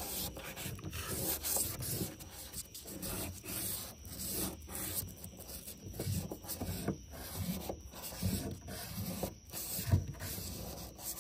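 A small metal part of a VW TDI vacuum pump being rubbed back and forth on sandpaper on a flat surface, a run of uneven scratchy strokes as it is sanded smooth to take out scratches.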